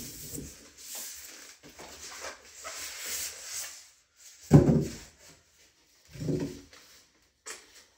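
Rustling and rubbing of handling noise for the first few seconds, then two short, loud, low vocal sounds, one about four and a half seconds in and another a second and a half later.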